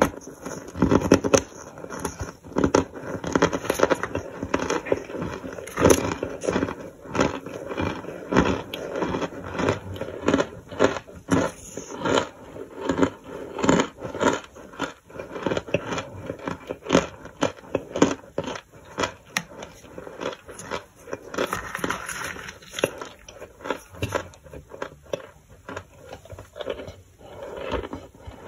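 Crisp baked starch chunks crunched and chewed, a dense run of crackling crunches, with a plastic spoon scraping through the powdery chunks in a plastic tub.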